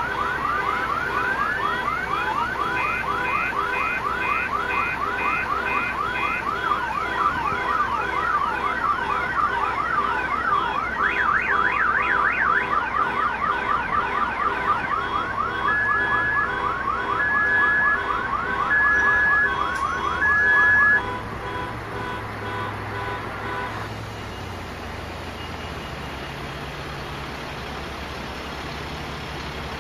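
An electronic alarm siren cycles through its tones: rapid rising whoops, short repeated beeps, then a high-low two-tone pattern. It stops abruptly about two-thirds of the way through, leaving a quieter low engine-like hum.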